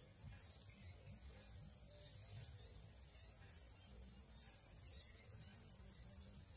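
Faint, steady high-pitched insect trilling, such as crickets in a field, over a low rumble.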